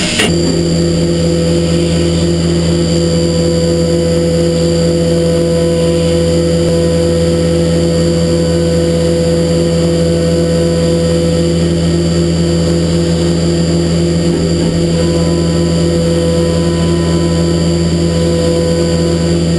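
HAAS Super Mini Mill 2 CNC mill cutting billet aluminium with flood coolant: a steady spindle and cutting whine over a low hum, with a regular fast pulsing throughout.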